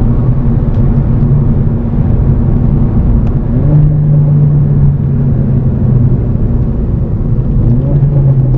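Mercedes-Benz CLA 45 AMG's turbocharged 2.0-litre four-cylinder engine running steadily under light load with road rumble. Its note rises briefly a little past a third of the way in and again near the end.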